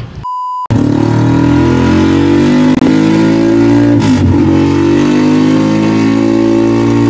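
A short beep, then a modified underbone motorcycle running hard on a roller dyno through a large aftermarket exhaust. The engine holds high, steady revs, with a brief dip in revs about four seconds in.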